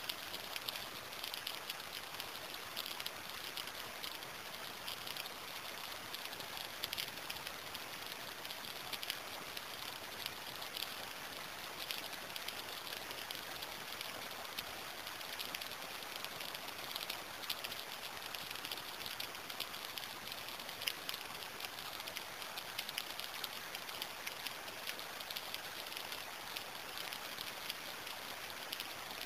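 Steady rain falling, with a dense patter of individual drops. No thunder is heard.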